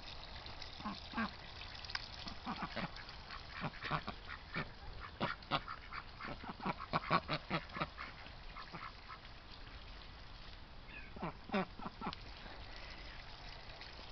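Domestic ducks quacking: a run of short quacks over several seconds, then a brief second flurry later on.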